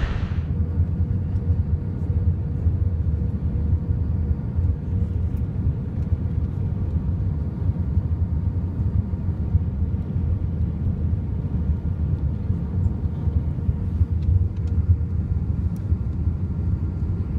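Steady low rumble of engines and airflow inside an Airbus A320's passenger cabin on approach, with a few faint steady tones above it.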